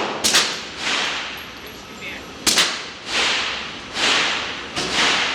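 Glock 19 9mm pistol shots, each a sharp crack followed by a long fading echo, about three of them a couple of seconds apart. Duller reports come in between.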